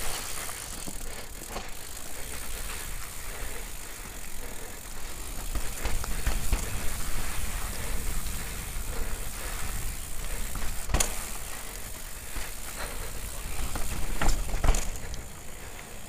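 Bicycle riding fast down a rough dirt trail: wind rumbling on the camera microphone, with the tyres and frame rattling over the ground. There are a few sharp knocks from bumps, one about eleven seconds in and two more near the end, where it is loudest.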